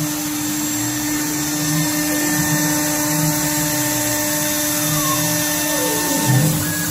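CNC router cutting aluminum: the spindle motor runs with a steady whine over a high hiss. About five seconds in, a second set of tones glides down in pitch as the machine's motion changes speed.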